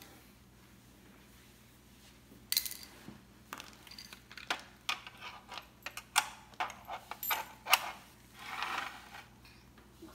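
Small plastic toys clicking and knocking against each other and a hard floor as a baby handles them: irregular sharp taps and clatters starting about two and a half seconds in, with a short scratchy rustle near the end.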